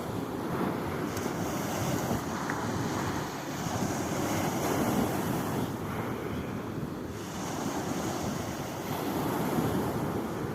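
Sea waves washing in onto the shore, the surf swelling and easing every few seconds, with wind noise on the microphone.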